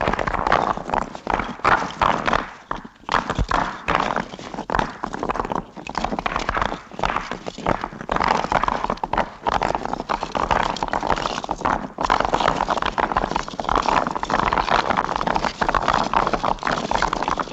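Dense, irregular clattering of many quick knocks running on continuously, with a few brief lulls.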